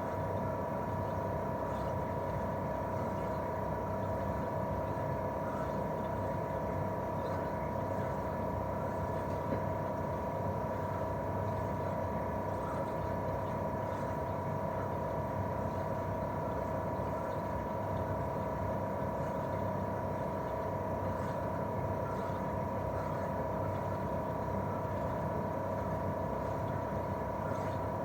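Daikin R28RMV mini-split outdoor unit running in cooling mode: its twin-cylinder swing compressor gives a steady whine of two held tones, one mid-pitched and one higher, over the even rush of the propeller fan.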